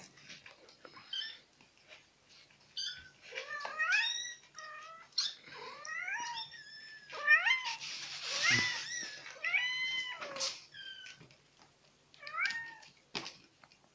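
A kitten mewing over and over in short, high-pitched calls that rise and fall in pitch, in a dense run through the middle and a few more near the end. A brief noisy burst comes about eight seconds in.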